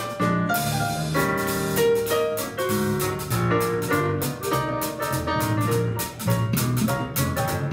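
Live jazz from a small combo: electric bass, keyboard and drums playing together, with a steady beat on the cymbals while the saxophone and trumpet rest.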